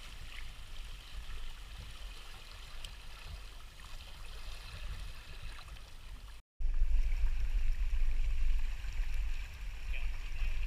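Water rushing and gurgling past the hull of a Hobie Tandem Island sailing trimaran under way. The sound drops out for a moment about six seconds in, then returns louder, with heavy wind rumble on the microphone over the water noise.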